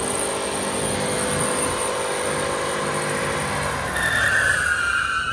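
Ford F-150 pickup doing a burnout on its front tyres: engine held at high revs with the tyres spinning and smoking. About four seconds in, a loud tyre squeal with a slowly falling pitch rises over it.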